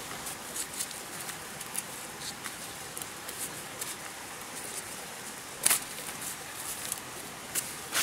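Steady outdoor hiss with scattered small taps and clicks, and one louder brief knock or rustle a little before six seconds in.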